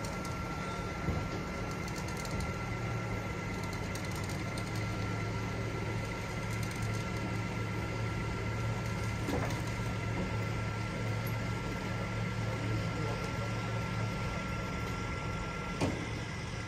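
Machinery running steadily: a low hum that swells a couple of seconds in, with a thin steady whine above it that stops with a click near the end.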